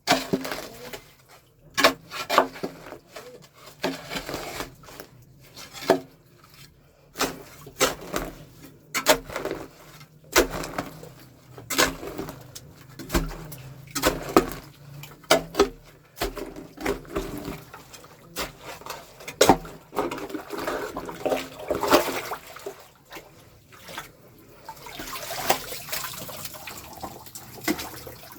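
Irregular knocks and clatters of hand tools and containers working in a water-filled, blocked manhole during manual drain clearing, with water sloshing. A longer spell of rushing hiss comes near the end.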